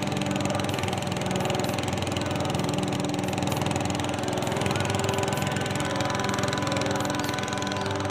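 Small wooden river boat's engine running steadily under way, a constant drone, over the rush of water from the wake.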